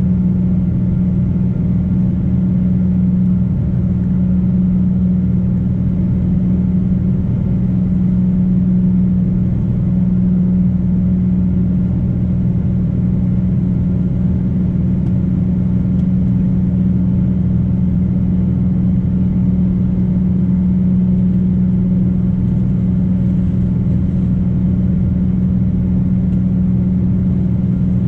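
Boeing 777-200 jet engines heard from inside the cabin: a loud, steady drone with a constant low hum over a rumble.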